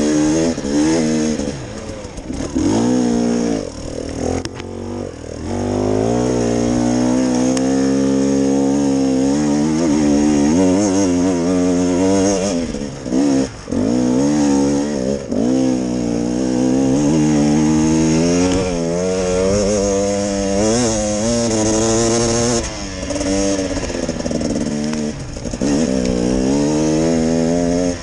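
Enduro dirt bike engine under hard riding, its pitch climbing and falling again and again as the throttle is opened and shut. It drops away suddenly for a moment about 13 seconds in.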